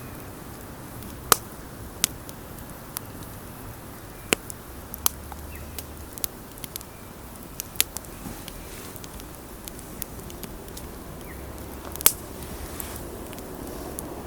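Wood campfire crackling: sharp, irregular pops and snaps over a soft, steady hiss, with the loudest pops about a second in and near the end.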